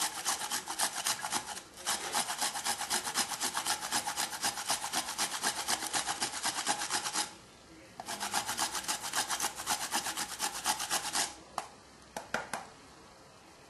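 Fresh ginger root being grated on a small flat metal hand grater: fast, even rasping strokes, several a second, with a short break about seven seconds in. The strokes stop near the end, followed by a few light knocks.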